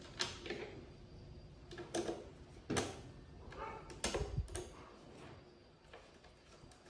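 Hand screwdriver and screws handled on a wooden shelf top: about five sharp clicks and knocks spread through the first five seconds, with quieter handling between them.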